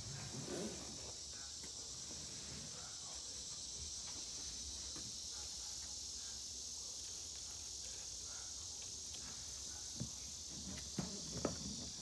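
Steady high-pitched chorus of insects. Near the end come a few light clicks from a Pomeranian puppy's claws tapping on the tiled floor.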